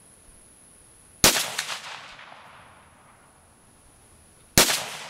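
Two rifle shots from an AK-pattern rifle fitted with a ported SLR Rifle Works Synergy muzzle brake, fired about three seconds apart. Each crack is followed by an echo that rolls off over about a second.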